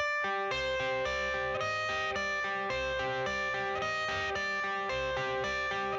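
Background music: a guitar-led intro with a steady beat.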